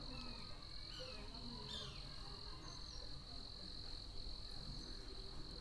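Faint, steady, high-pitched cricket trill, unbroken throughout.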